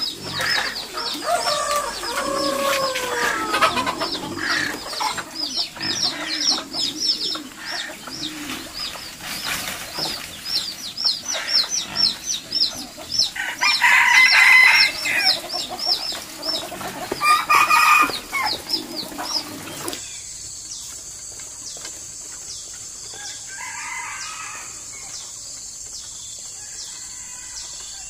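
Free-range chickens clucking over a constant run of quick high peeping chirps, with a rooster crowing loudly twice midway. About two-thirds of the way through, this gives way abruptly to a steady high insect drone.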